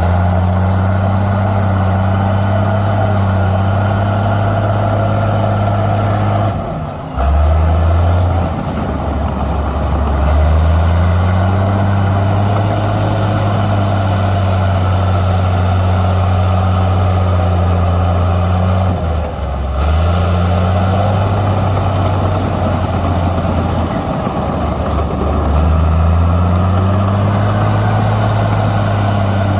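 Heavy diesel engine of earthmoving machinery running steadily. Its pitch drops three times, about a quarter of the way in, about two thirds in and near the end, and each time climbs back as the engine takes load and then recovers.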